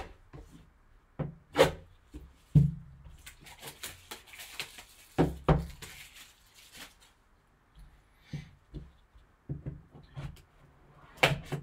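Gloved hands handling a sealed cardboard trading card box on a table: scattered knocks and taps with a stretch of rustling, then a folding knife opened over the box near the end.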